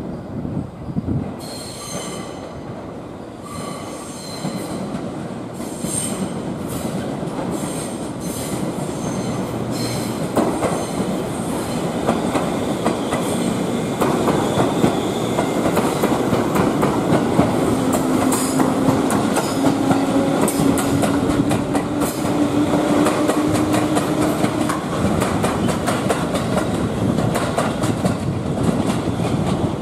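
JR 211 series electric train running slowly past over the station's points, wheels clicking over rail joints and switches and squealing on the curves. A low hum, rising slightly in pitch, comes in during the second half as it passes.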